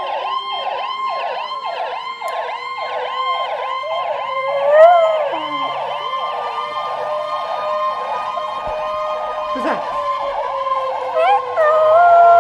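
Emergency-vehicle siren in a fast repeating yelp, about two sweeps a second, over a steady wail. A dog howls along briefly about five seconds in and again near the end.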